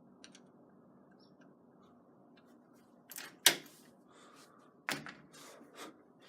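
Screwdriver and hand working the mounting screws of a keypad door lock: faint at first, then a sharp click about three and a half seconds in, another about five seconds in, and a few softer clicks and scrapes after.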